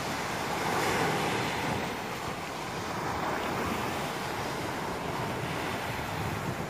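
Small ocean waves breaking and washing onto the beach, a steady surf noise that swells slightly about a second in, with wind buffeting the microphone.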